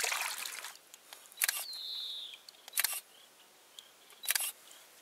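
A camera shutter fires three times, about a second and a half apart, as the caught carp is photographed. Between the first two shots a bird gives one short falling whistle.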